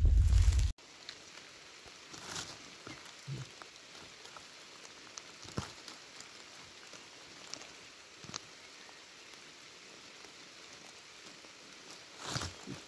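Rain in a wet forest: scattered raindrops ticking onto leaves, one at a time, over a faint steady hiss. A loud low rumble on the microphone cuts off suddenly within the first second, and a few louder rustles come near the end.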